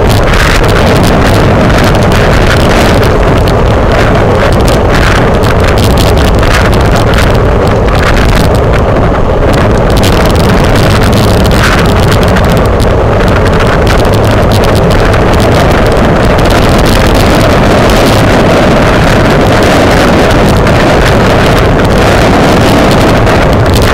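Loud, steady wind rush buffeting the microphone of a camera on a road bicycle riding at race speed, with a low rumble underneath.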